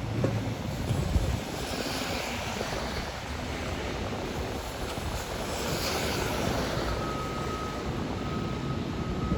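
Diesel excavator working at a construction site, its engine running steadily, with a couple of knocks in the first second or so. A thin steady whine joins about seven seconds in.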